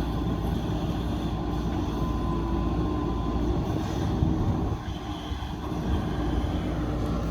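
JCB backhoe loader's diesel engine running steadily, with a brief drop in loudness about five seconds in.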